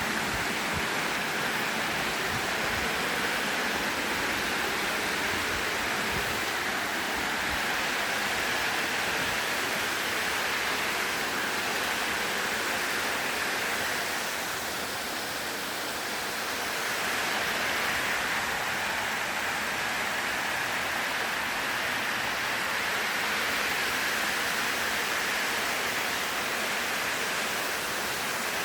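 Waterfall: a steady rush of falling water, briefly a little softer about halfway through.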